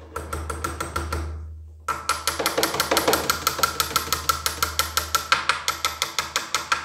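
Small hammer tapping lightly on the metal U-pin of a Nilfisk E 140.3 pressure washer pump to seat it over the new non-return valve. A few spaced taps come first, then from about two seconds in a steady quick run of about five taps a second, each with a short metallic ring.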